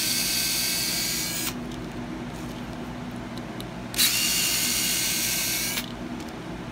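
Electric screwdriver whirring in two runs of about a second and a half each, backing out the screws of a three-pin plug to take it apart.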